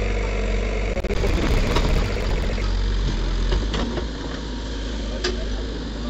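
Caterpillar 424B backhoe loader's diesel engine running steadily under the backhoe's digging, louder for a couple of seconds about a second in, with a few short knocks.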